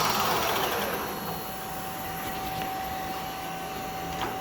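Clausing Colchester 13 x 30 engine lathe with a variable-speed drive, its spindle slowing down from 2,000 RPM with a falling whine that fades over the first second. It then runs on at a lower, steady pitch. There is a brief click near the end.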